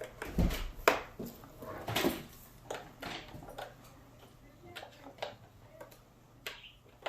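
Clicks, knocks and rustles of hands plugging a USB cable into a portable monitor and laptop, busiest in the first two seconds, then sparser.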